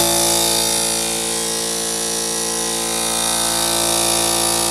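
Small electric air compressor running steadily on a newly wired 20 amp receptacle, its motor and pump giving a loud, even hum over a hiss.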